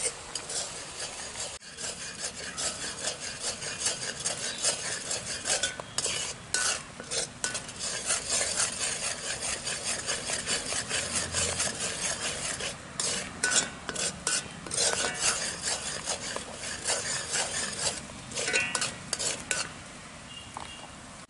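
Steel spoon stirring and scraping thick, bubbling milk and sugar around a heavy kadai in quick irregular strokes, easing off near the end. It is the constant stirring of milk cooked down for palkova, which keeps the thickening mixture from catching on the bottom.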